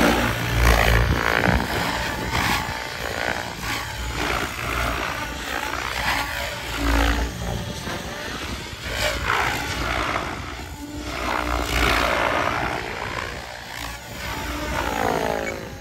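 Radio-controlled helicopter flying aerobatics, its rotors whirring with a whine that sweeps up and down in pitch as it swoops, climbs and flips. A few low thumps come through now and then.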